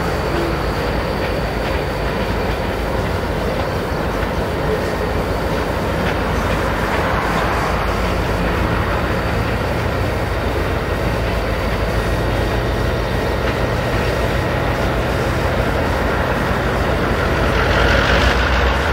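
EMD GP38-2 and GP39 diesel locomotives running steadily as they pull a cut of hopper cars at slow switching speed, with the cars' wheels rolling over the yard track. The sound grows louder near the end.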